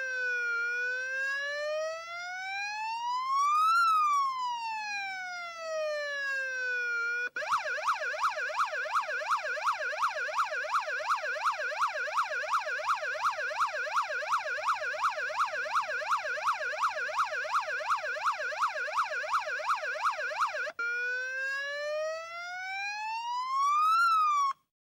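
Police car siren sounding a slow wail that rises and falls. About seven seconds in it switches to a fast yelp of about three sweeps a second, switches back to the slow wail near the end, then cuts off suddenly.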